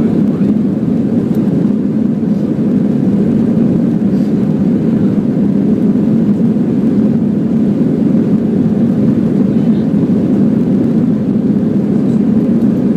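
Steady, loud cabin roar of a Lufthansa Airbus airliner's jet engines and airflow as the plane takes off and climbs, an even low rumble without change.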